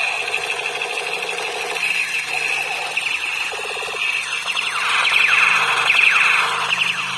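Battery-powered toy gun's electronic sound effect: a high, rapidly pulsing electronic tone, with a run of quick falling sweeps about four seconds in and again near six seconds.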